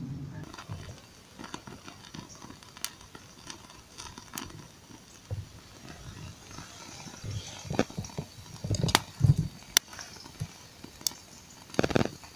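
Small campfire of thin twigs crackling, with scattered sharp pops and a few louder knocks about nine seconds in and near the end.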